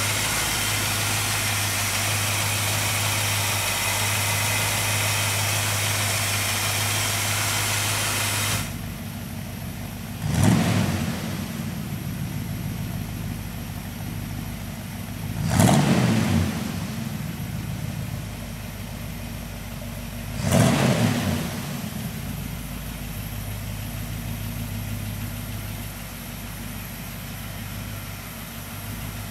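Chevrolet 350 V8 in a 1968 Chevrolet K10 pickup, just started and running at a fast idle. About eight seconds in it drops to a quieter, lower idle. It is then revved briefly three times, about five seconds apart, and settles back to a steady idle.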